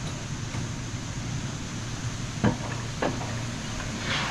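Jungle coaster cart running along its track with a steady low rumble, and two sharp knocks a little past halfway.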